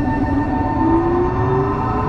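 Tokyo Metro 03 series chopper-control electric train, heard from inside a motor car: the chopper's steady high whine sounds over wheel and track rumble, while a motor hum rises steadily in pitch as the train gathers speed.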